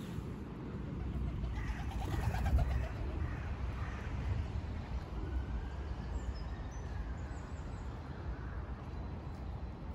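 Birds calling outdoors: a pigeon cooing, with a few short high chirps from small birds about six to seven seconds in, over a steady low rumble.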